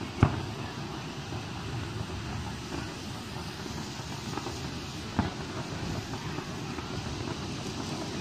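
Distant fireworks going off: a sharp bang about a quarter second in and another about five seconds in, with a few fainter pops between, over steady outdoor background noise.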